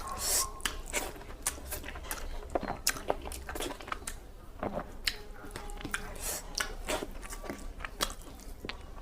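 Chewing and mouth smacking while eating rice with cabbage-and-potato curry: an irregular run of short, wet clicks several times a second.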